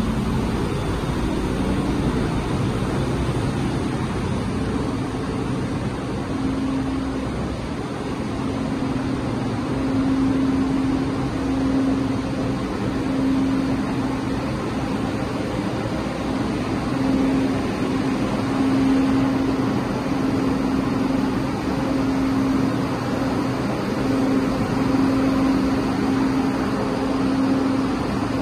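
Steady drone of running industrial machinery on a PET bottle washing line: motors and conveyors, with a low hum that swells and fades every second or two.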